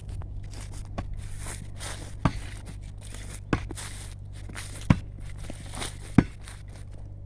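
Four sharp knocks, evenly spaced about a second and a quarter apart from about two seconds in, over a low steady hum.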